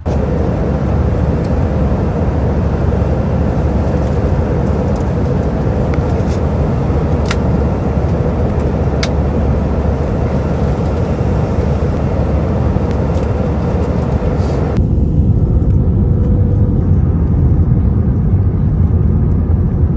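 Steady vehicle running noise with a low rumble and a faint steady hum. It changes abruptly about fifteen seconds in, turning duller and slightly louder, with a couple of short clicks along the way.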